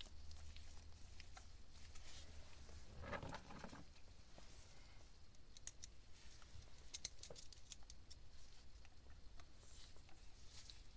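Faint scattered clicks and scraping of a screwdriver and small screws being fitted into the cover of a Yanmar 3YM30's raw-water pump, with a low hum underneath.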